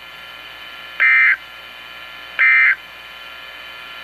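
NOAA Weather Radio SAME end-of-message signal: two short, loud bursts of digital two-tone data about a second and a half apart, the last of the three bursts that mark the end of the alert. They sound over a steady radio hiss.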